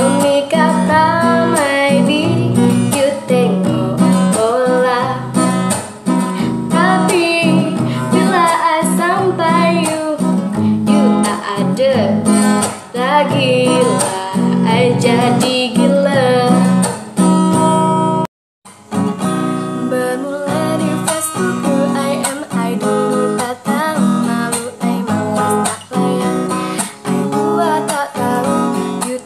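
A young woman singing to her own strummed acoustic guitar. The music breaks off for an instant about two-thirds of the way in, then the singing and guitar start again in another take.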